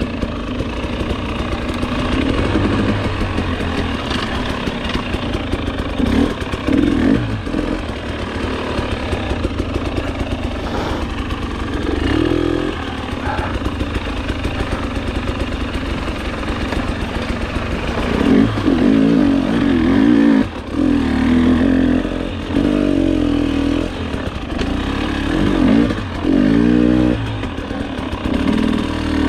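Two-stroke single-cylinder engine of a 2020 KTM 300 XC-W TPI dirt bike running under way, with the throttle opened and closed in short revs, most often in the second half.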